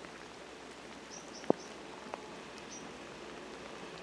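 Steady rain with drops pattering close to the microphone. A single sharp tap about one and a half seconds in is the loudest thing, with a smaller tap just after and a few faint high chirps.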